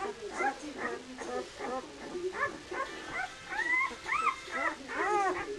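A litter of nine-day-old Swiss White Shepherd puppies whimpering: many short calls that rise and fall in pitch, several overlapping at once.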